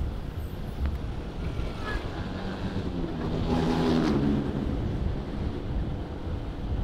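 Wind rushing over the microphone of a motorcycle riding along a road, with a steady low rumble. About three seconds in, an engine note swells for a second or so and then fades.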